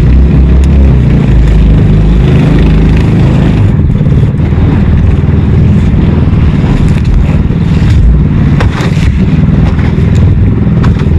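Small fishing boat's engine running steadily, with a low drone and a few short knocks or scrapes later on.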